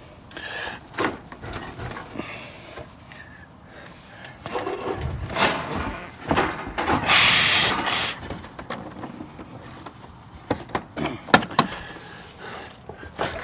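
Carpentry work on a door frame: scattered knocks and clicks of wood and tools, a brief hissing rush about seven seconds in, and a few sharp knocks near the end.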